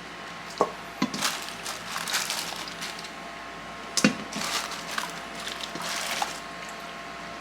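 Pot of hot lard and canola oil on a cooking pit sizzling in swells that last a second or two, with a few sharp knocks.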